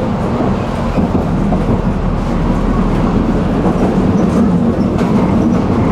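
Tram running along the track, heard from inside the car: a steady rumble of wheels on rails and running gear.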